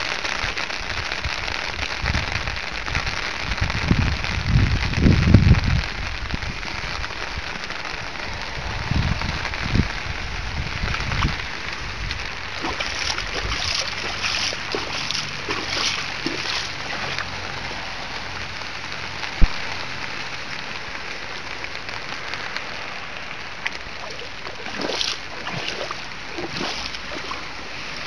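Rain falling steadily on shallow floodwater, with a boot kicking and sloshing through the water. There are bursts of splashing around the middle and again near the end, and some low rumbles on the microphone early on.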